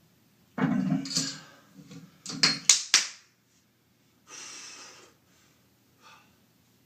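A man breathing hard and grunting from heavy straining: a loud forceful grunt about half a second in, a few sharp knocks around the middle, then a long breath out.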